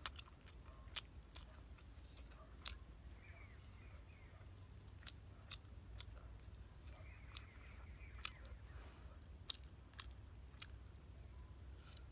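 Quiet eating sounds from someone chewing braised chicken and egg: sharp lip smacks and mouth clicks at irregular intervals, over a faint steady high tone.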